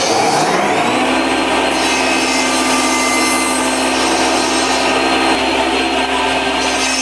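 Table saw with its motor still spinning up, the pitch rising in the first second, then running steadily at speed. Its blade cuts through a pine block on a crosscut sled, adding a brighter hiss from about two seconds in to near the end.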